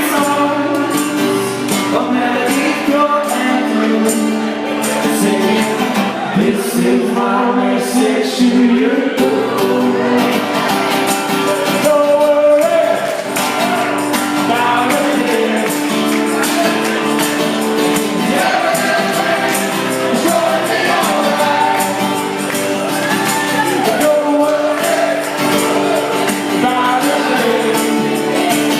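Live band performing a song: voices singing over the accompaniment, with a steady beat of percussive strikes.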